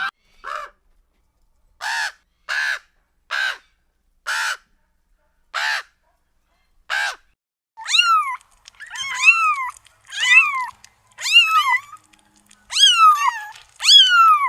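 Bird calls: a series of short harsh calls about a second apart, then from about eight seconds in, longer calls that sweep up and down in pitch.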